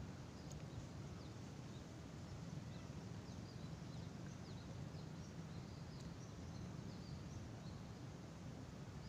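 Quiet open-air ambience by a pond: a low, uneven rumble of wind on the microphone, with many faint, short, high bird chirps scattered throughout.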